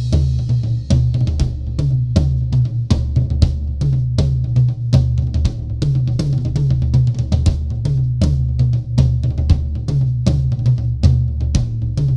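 Gretsch Renown Maple drum kit played in a solo groove: kick drum, snare and toms struck in a steady, busy rhythm with Sabian cymbals, opening on a cymbal crash.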